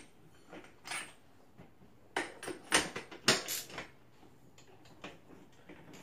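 Metal clinks and rattles of a wrench and axle hardware as a BMX front wheel is unbolted and lifted out of the fork. A couple of light clinks come in the first second, then a busier run of clattering from about two to four seconds in.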